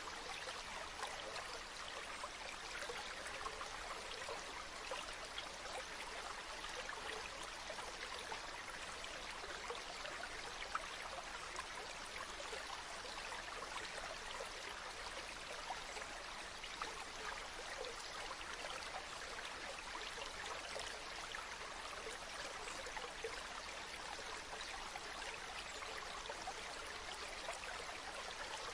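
Running water flowing steadily, an even rush with fine splashing detail and no rise and fall.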